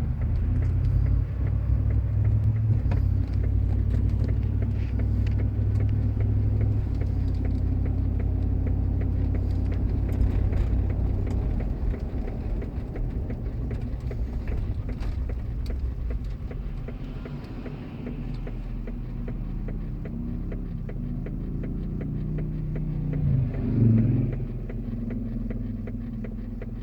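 Engine and road rumble inside the cab of a 2004 Chevrolet Tahoe, with an unidentified knocking from the truck that the owner says sounds like something trying to open. The engine note shifts in pitch in the second half and swells louder about 23 seconds in.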